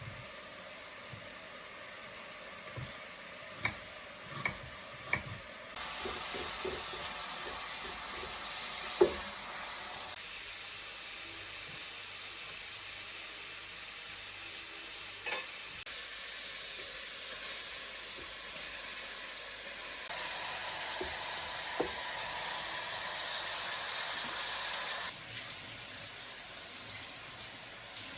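Food sizzling in a frying pan: a steady hiss that steps up and down in level a few times, with scattered clicks and knocks.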